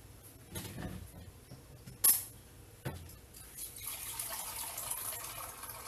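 A sharp clink about two seconds in and a smaller knock a second later, then water pouring steadily through the last two seconds or so.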